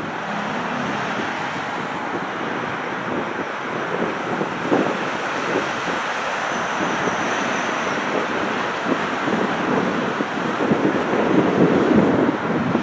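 Distant jet engine noise from a four-engine Airbus A340-300 rolling out and slowing on the runway just after touchdown, with wind buffeting the microphone, more strongly near the end.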